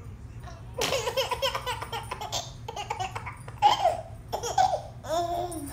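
Baby laughing, starting about a second in, in repeated bursts of giggles.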